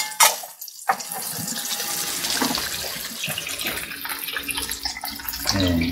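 Chicken wings deep-frying in a pan of hot oil: a steady sizzle full of fine crackles, dipping briefly just before a second in.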